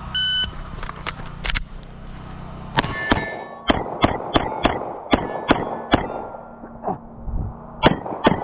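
A shot-timer beep, then a string of Glock pistol shots, a few close together and then a steady run of about two to three a second. Hits on the steel targets ring after many of the shots.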